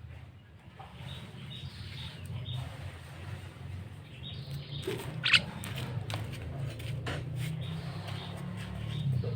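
Javan myna giving short, scattered calls and clicks over a steady low hum, the loudest call coming about five seconds in.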